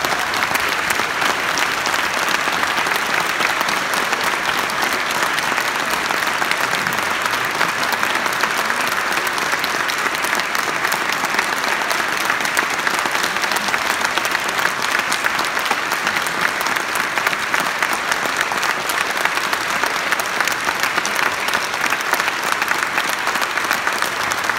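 Audience applauding in a concert hall: dense, steady clapping, the ovation after a soprano's opera aria.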